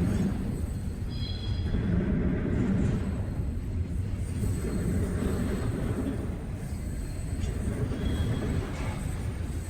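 Freight train cars rolling past with a steady low rumble of wheels on rail, with brief high wheel squeals about a second in and again near the end.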